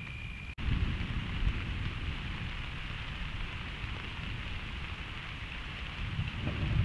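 Thunderstorm: steady rain hiss under a low, rolling rumble of thunder that swells near the end. The sound cuts out for an instant about half a second in.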